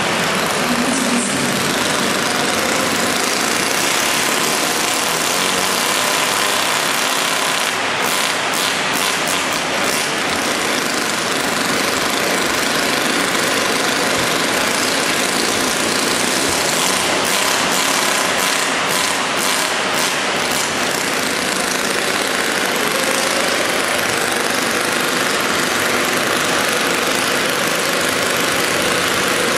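Small combustion model engine of a radio-controlled pulling tractor running steadily, with a few short crackles about eight and eighteen seconds in.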